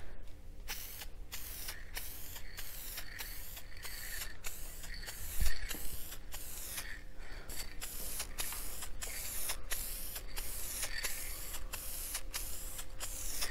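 Aerosol can of fabric spray dye hissing as it is sprayed onto a cloth bench seat, the hiss pulsing about twice a second. A brief thump about five and a half seconds in.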